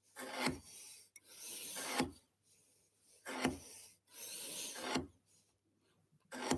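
Marking knife scoring a line into wood along the edge of a square: about five separate scraping strokes with short pauses between them.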